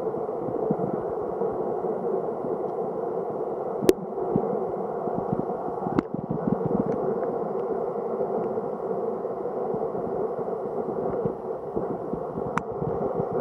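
Steady, muffled wash of river water heard underwater through a submerged camera's housing. Three sharp clicks cut through it, about four seconds in, about six seconds in, and near the end.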